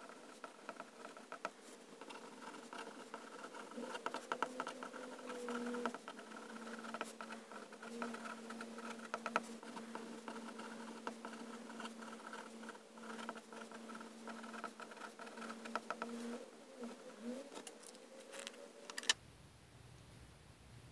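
Steel extra-fine nib of a Pilot Penmanship fountain pen scratching across Rhodia paper in quick, light strokes, over a faint steady hum. Near the end a sharp click, then the writing sounds stop and only a low hum remains.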